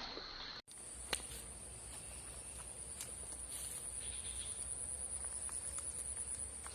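Insects calling outdoors: a steady, high-pitched buzz that sets in about half a second in, with a single sharp click shortly after.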